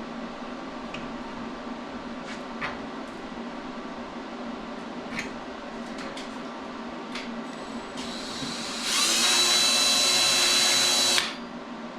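A steady low hum with scattered light clicks. Near the end an electric drill runs for about two seconds with a loud high whine, drilling out spot welds in the old steel sub rail, then stops suddenly.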